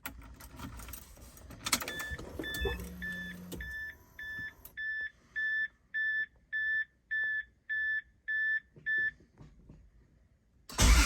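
A 1986.5 Toyota Supra's interior warning chime beeps about a dozen times at an even pace, roughly two beeps a second. Near the end the engine cranks and starts with the new higher-rated starter relay in place.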